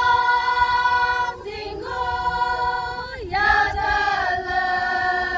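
A choir of voices singing a song together in long held notes, three sustained phrases, with the song ending abruptly near the end.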